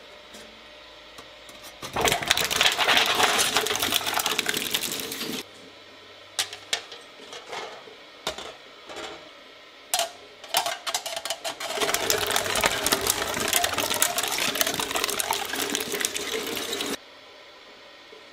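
Twin-shaft shredder's cutter blades tearing up an exit sign, a loud dense crunching and cracking for about three and a half seconds, then scattered sharp cracks. Near the middle two licence plates go into the blades for a second long run of crunching that stops abruptly, with the machine running quietly in between.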